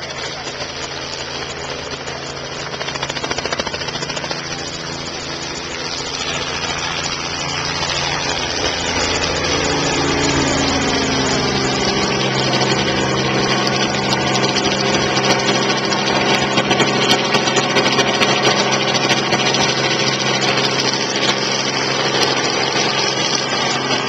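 Light helicopter flying low overhead, its rotor and engine drone growing louder as it comes in, with a drop in pitch about ten seconds in as it passes.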